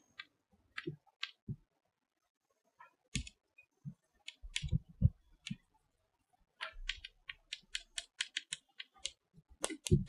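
Chalk tapping and scratching on a blackboard as words are written: a few scattered light taps, then a quick run of taps from about two-thirds of the way in.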